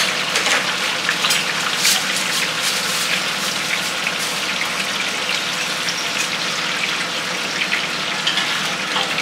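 Oyster fritters deep-frying in a wok of hot oil: a steady sizzle with many small crackling pops.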